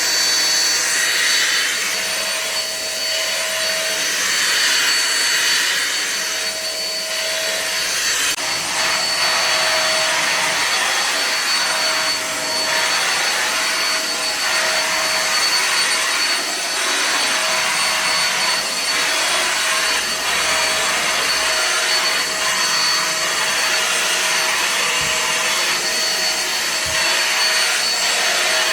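Vacuum cleaner running steadily. For the first several seconds its sound swells and eases every two to three seconds, then it runs more evenly.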